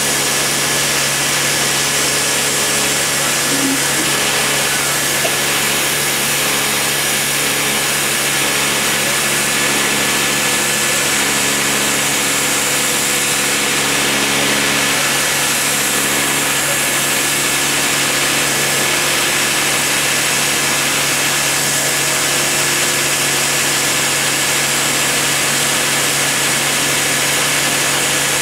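Dremel rotary tool spinning a small cutter as it routes MDF under CNC control: a steady high whine over a low machine hum, with no change in speed.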